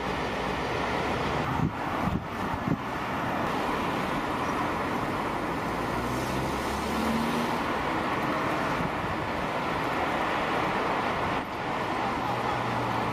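Steady road and engine noise of a moving car heard from inside the cabin, with a few brief knocks about two seconds in.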